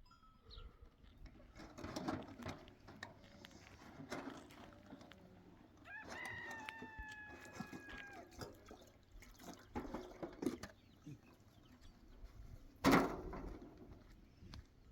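A rooster crows once in the middle, one long call of about two seconds that drops at the end, among scattered knocks and clatter. A loud sharp knock comes near the end.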